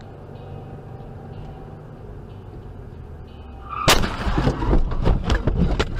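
Steady low road and engine noise inside a moving car, then about four seconds in a sudden loud bang followed by a quick, irregular string of sharp bangs and cracks.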